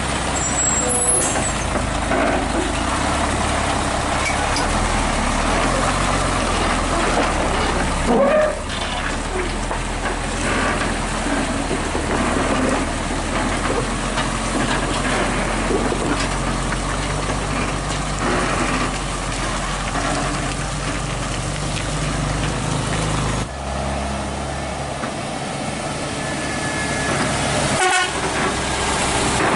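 Hino 500 FM320TI truck's diesel engine running close by as it pulls a trailer loaded with an excavator. The engine note shifts about eight seconds in and again a few seconds before the end, and there is a sharp click near the end.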